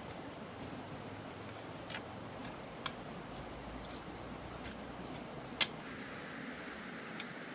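Metal hoe blade chopping into garden soil: a few sharp, irregular strikes, the loudest about two thirds of the way through, over a steady background hiss.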